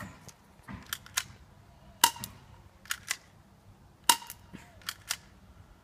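Airsoft Sig Sauer P230 pistol being fired, a string of sharp snaps: four loud ones roughly one to two seconds apart, with fainter clicks between them.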